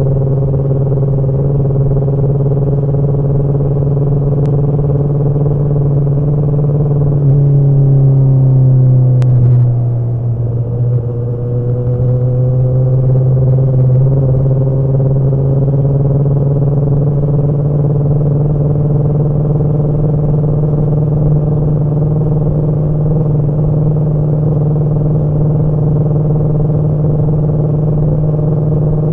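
Kawasaki ZX-10R inline-four motorcycle engine running steadily at cruising revs. About ten seconds in its note drops briefly as the throttle comes off, then climbs gradually and holds steady again.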